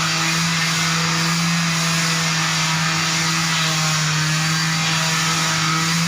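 Electric floor sanding machine running steadily: a constant motor hum under an even grinding hiss.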